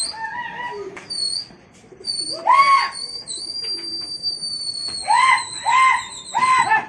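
Pigeon flyers calling to their circling flock: a long, shrill, high whistle that sinks slightly in pitch, and four short, loud, rising-and-falling shouts, the last three in quick succession near the end.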